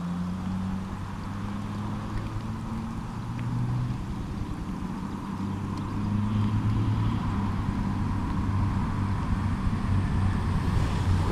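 A low, steady engine hum that grows a little louder about six seconds in.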